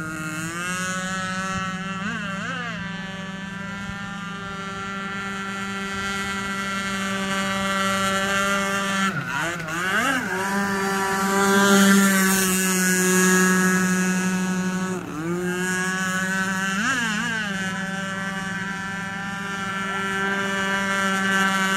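Radio-controlled speedboat's motor running flat out at a high, steady pitch, dipping and climbing back in pitch a few times as the boat turns and throws spray.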